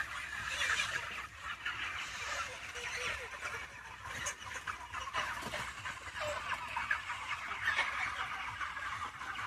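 A large flock of chickens calling continuously, many short calls overlapping into a steady chatter.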